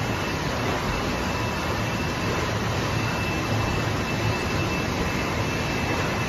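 Steady machinery noise of a water-bottling line running, its conveyors carrying filled plastic bottles, with a faint high whine and a low hum under an even rushing noise.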